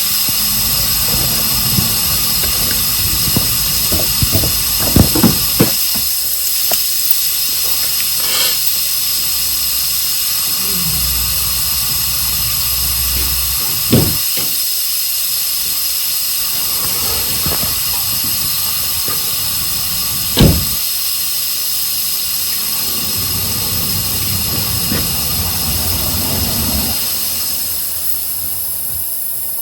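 Metabo HPT cordless air compressor running steadily with a hiss and a high whine, with a few sharp knocks: several about five seconds in, one near 14 seconds and one near 20 seconds. The running sound eases slightly near the end.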